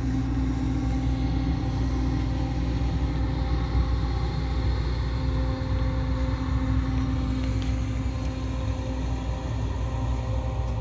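A street sweeper's vacuum fan and a wood chipper running at the same time: a steady mechanical hum and rumble with a few held tones.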